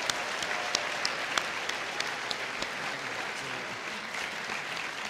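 Audience applauding: a dense patter of hand claps that slowly fades.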